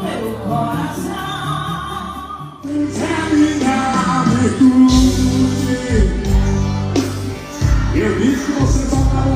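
Forró band music with singing. It breaks off briefly about two and a half seconds in and resumes with a heavier, pulsing bass beat.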